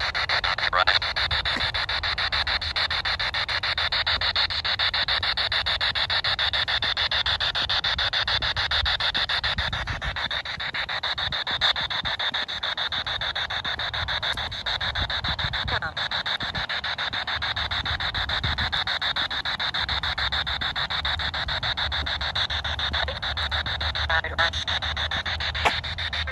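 P-SB7T Spirit Box sweeping through the FM radio band: a continuous rush of radio static, chopped into rapid bursts as it steps from station to station.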